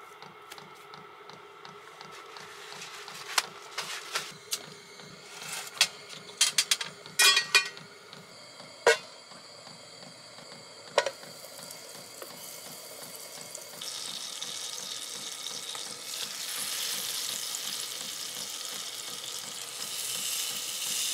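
A few sharp knocks and clinks of a pan and utensils, then a fresh cod fillet sizzling as it fries in a camping-stove frying pan. The sizzle grows louder in the second half.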